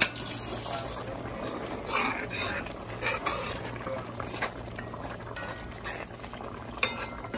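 A pot of food simmering and bubbling on the stove, with a single sharp knock near the end.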